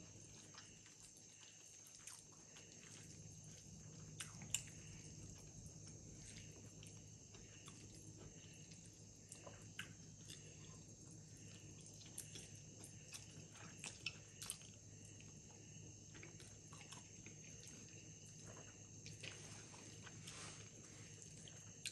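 Faint chewing and mouth sounds of a person eating noodles, with scattered small clicks over a low steady hum.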